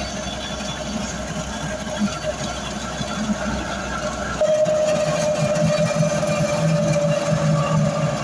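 Engine and road noise of a moving vehicle, heard from inside it. About four seconds in the deep rumble drops out abruptly and a steady, somewhat louder hum with a held mid-pitched tone takes over.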